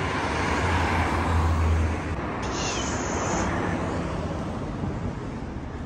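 City street traffic noise: a car drives past, growing louder for about two seconds and then slowly fading.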